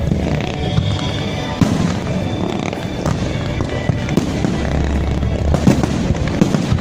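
Fireworks display: aerial shells bursting in rapid, overlapping bangs, with music playing underneath.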